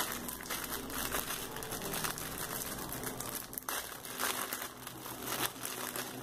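Clear plastic wrapping crinkling and crackling as hands handle it, in a quick run of small rustles.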